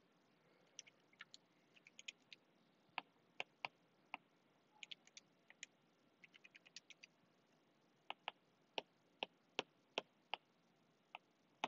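Near silence broken by faint, irregular light clicks and taps, some in quick runs of several: a stylus tapping and writing on a tablet's glass screen, with calculator key presses.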